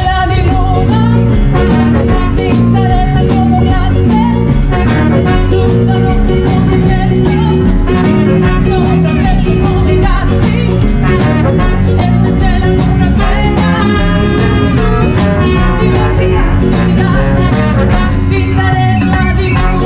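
Live swing band playing with a woman singing, backed by saxophone, trumpet, hollow-body electric guitar and drums over a steady beat.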